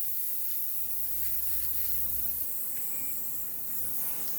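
Air hissing steadily out of a bicycle inner tube's valve as it is let down, so the tube can settle into place inside the newly fitted tyre.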